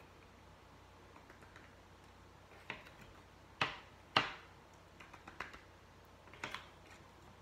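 Plastic knife clicking and scraping against a clear plastic bag as thick paint is scraped into it: a few sharp plastic clicks, the two loudest a little over half a second apart in the middle, with faint crinkles and ticks between.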